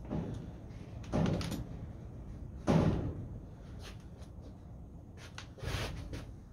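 A few dull clunks and knocks: three louder ones, the loudest about a third of the way in, with lighter clicks between them.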